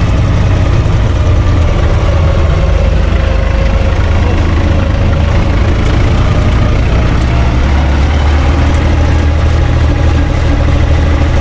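UTB 445 tractor's three-cylinder diesel engine running steadily while driving, heard from inside the cab. The engine note shifts about eight seconds in.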